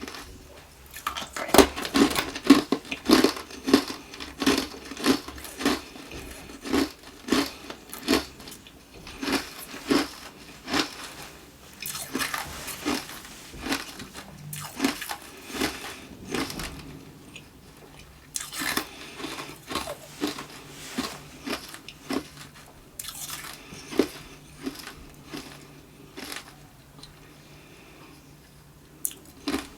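Close-up chewing of hard tube ice: a steady run of sharp crunches, about two a second, thinning out in the second half.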